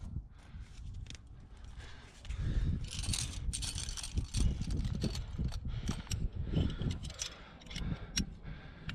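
Climbing rack of carabiners and cams on a harness clinking and jangling as a climber moves and places gear in a crack, with rubbing and scraping of body and clothing against the rock and a few sharp metal clicks near the end. A dense low rumble of handling noise sets in about two seconds in.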